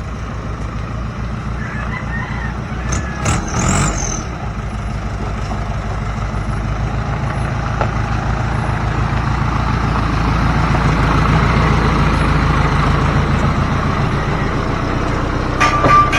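Heavy diesel engine running steadily and growing louder, as at a site where a dump truck is being loaded. There is a brief high squeal with a hiss about three seconds in, and a quick run of sharp clatters near the end.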